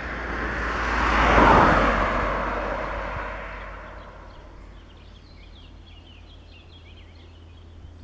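A road vehicle passes close by out of sight: its tyre and engine noise swells to a peak about a second and a half in, then fades away. Afterwards birds chirp faintly.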